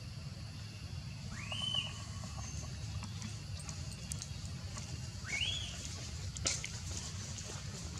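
Baby macaque crying: two short, high wails that rise and arch over, about four seconds apart, over a steady low rumble, with a sharp click near the end.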